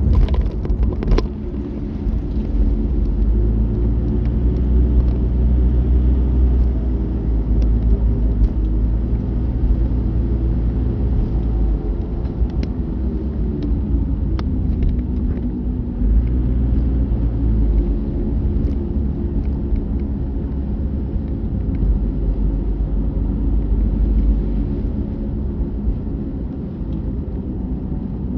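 Car engine and road rumble heard from inside a moving car on a mountain road. A deep rumble swells and eases, and the engine note drops about halfway through before picking up again.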